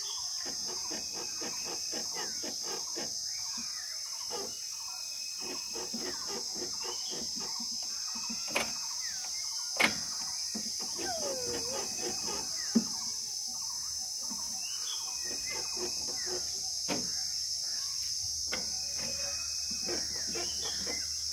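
Steady high-pitched insect drone with birds chirping and calling over it, and a few sharp knocks around the middle.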